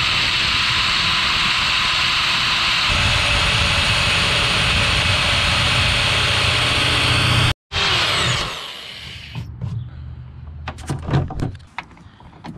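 Power drill running steadily under load, drilling into the canoe to fit paddle clips; its pitch shifts about three seconds in. After a sudden break near the middle the drill winds down, followed by a series of light knocks and clicks.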